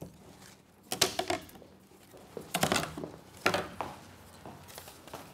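Wooden ruler and drafting tools knocking and clattering against a drafting table in several short bursts of knocks about a second apart.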